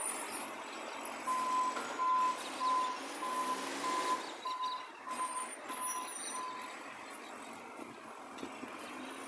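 Garbage truck's reversing alarm beeping about twice a second for some five seconds, then stopping, over the truck's engine running with an exhaust leak.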